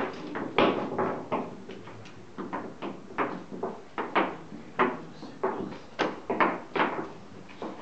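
Wooden chess pieces being set down on boards and chess clock buttons being pressed, heard as a steady run of short wooden knocks, two or three a second.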